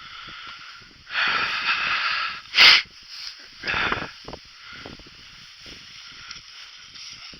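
Bursts of rustling, hissing noise outdoors. The loudest is a short, sharp burst about two and a half seconds in, with a smaller burst about a second later.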